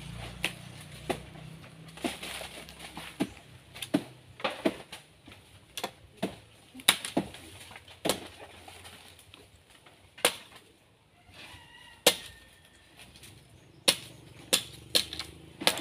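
Blade strokes hacking into a banana tree trunk: a long series of sharp, irregular whacks, about one or two a second, with a short lull around eleven seconds in.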